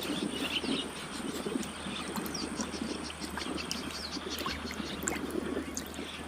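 Outdoor ambience: scattered short high chirps and clicks and a thin steady high tone over a low steady hum.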